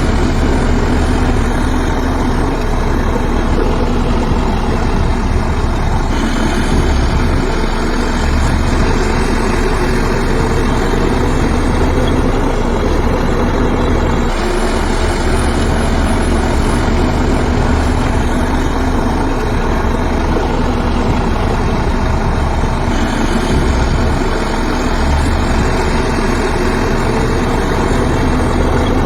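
Heavy diesel earthmoving machinery running steadily, its engine note shifting a little every few seconds.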